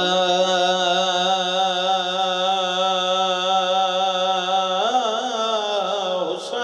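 A man chanting one long held note of a mourning elegy. The note stays steady for about five seconds, then wavers up and down before settling near the end.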